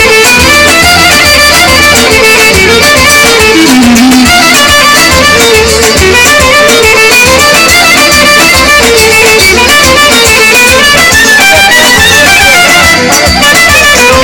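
Live band music played very loud through PA speakers: a keyboard-backed dance tune with a steady pulsing beat and a fast, ornamented lead melody line.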